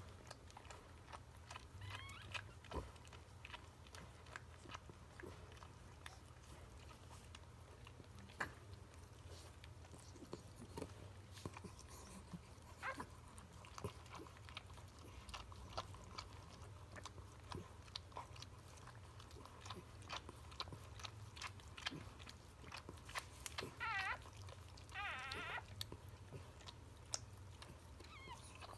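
Mother dog licking her newborn puppies: faint wet clicks and smacks, with a newborn puppy's brief wavering squeaks twice near the end.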